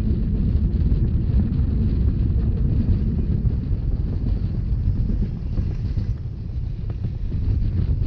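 Steady low rumble of a Rhaetian Railway narrow-gauge train running, with wind buffeting the microphone; it eases a little about six seconds in.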